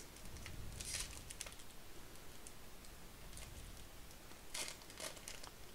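Foil wrapper of a Topps baseball card pack crinkling as it is torn open and pulled apart, in short faint rustles about a second in and again near the end.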